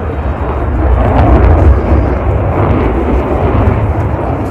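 Loud jet roar of an F-35C fighter flying past, swelling to its loudest about one and a half seconds in and then slowly easing.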